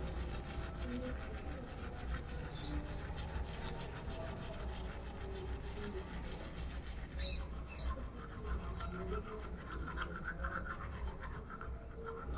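Manual toothbrush scrubbing teeth through a mouthful of toothpaste foam: rapid, steady back-and-forth rubbing strokes.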